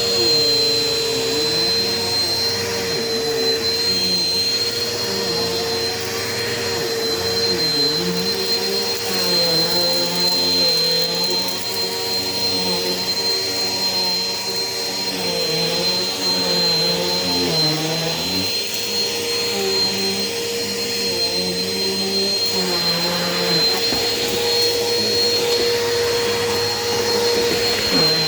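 Eureka Power Speed upright vacuum cleaner running steadily while it picks up paper from the floor. It has a constant high whine over the motor hum, and the lower part of the hum wavers up and down.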